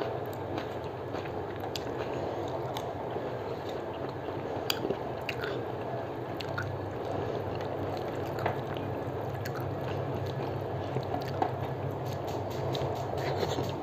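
Fingers squishing and mixing rice with dal on a metal plate, with chewing and small scattered clicks, over a steady low background hum.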